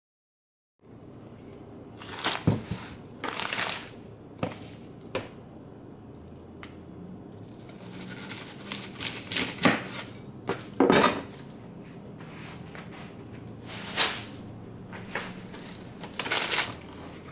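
Chef's knife chopping through a bundle of green onions and striking the cutting board in irregular, sharp chops, beginning after about a second of silence.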